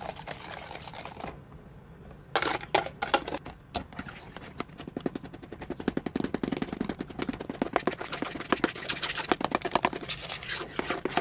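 A wire whisk beating egg and sugar mixture into a yeast sponge in a plastic bowl: fast, rhythmic clicking of the wires against the bowl. It comes in short bursts after a brief pause about a second in, then runs on steadily.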